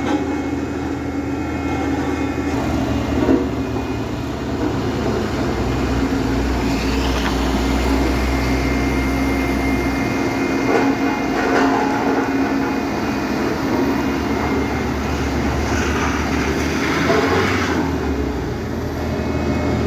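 Heavy vehicle engines running steadily with traffic noise, a low droning hum that swells a little in places.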